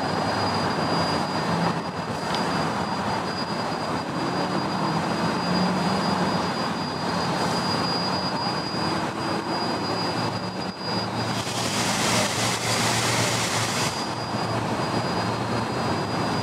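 Polson Logging Company No. 2 steam locomotive idling: a steady hiss of escaping steam over a low hum, with a thin high whine throughout. A little past the middle a sharper, brighter rush of steam joins in for about three seconds.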